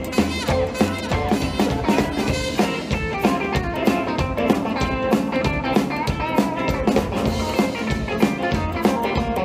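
Live rock 'n' roll band playing through a stage PA: upright bass, electric guitars and a drum kit.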